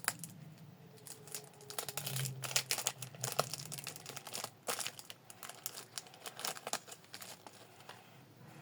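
Crinkling and tearing of a Pokémon card booster pack wrapper as it is handled and opened, in quick irregular rustles.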